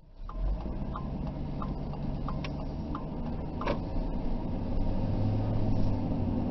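Car interior with the engine and road running as a steady low hum. A turn-signal indicator ticks about one and a half times a second for the first few seconds, then stops.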